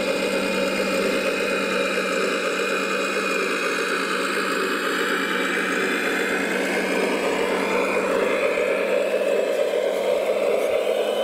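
Radio-controlled Volvo A45G model articulated hauler driving over gravel, giving a steady motor whir and hum that rises a little in pitch about two thirds of the way through.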